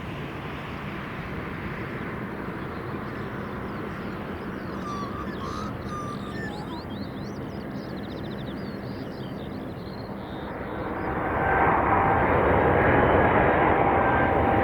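Boeing 777 freighter's General Electric GE90 turbofan engines, a steady jet rush that grows louder about eleven seconds in as the aircraft nears, with a whining tone over the rush.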